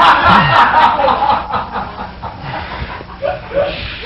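Studio audience laughing, loudest in the first second and then trailing off.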